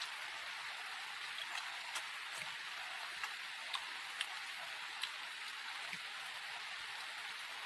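A person eating with their hands: about a dozen small, sharp clicks and smacks of chewing and fingers picking at rice, scattered over a steady background hiss.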